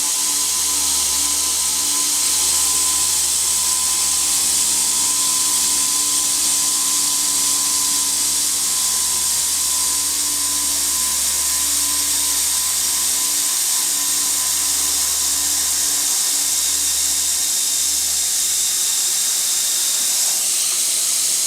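Delta Machinery DT-100 circular sawing machine running with a steady, loud hiss and a low hum underneath that drops out briefly a few times.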